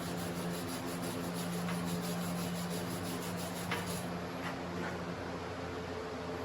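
Steady low machine hum that stops about five seconds in, with a few faint ticks.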